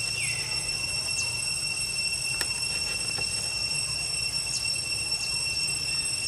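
Steady high-pitched whine of cicadas droning in the trees. A few short, falling high chirps and a single click sound over it.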